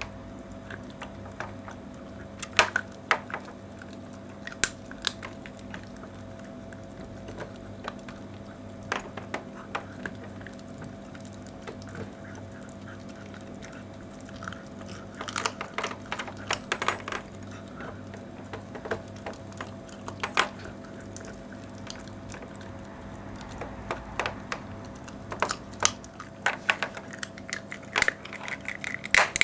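Small dog, a Toy Manchester Terrier, chewing and crunching a raw meaty bone, with irregular sharp cracks of bone that come thicker about halfway through and again near the end. A steady low hum runs underneath.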